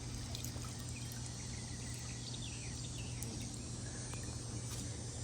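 Quiet outdoor background: a steady low hum under a faint haze, with a few short, falling high chirps about halfway through.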